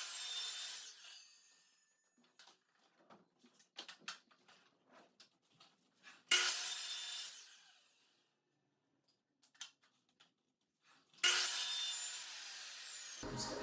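A power tool run in three short bursts about six seconds apart, each starting sharply and fading over a second or two, with light knocks and taps in between.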